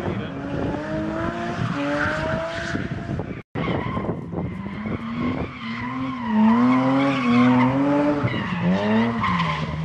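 Drift car's engine revving hard, its pitch swinging up and down as the throttle is worked through a slide, over the screech of smoking rear tyres. The sound drops out for an instant a little over three seconds in.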